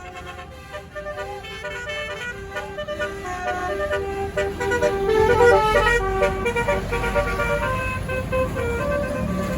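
Tour bus's basuri telolet horn playing a quick tune of several notes at once, getting louder toward the middle, with the bus's engine rumbling underneath from about halfway.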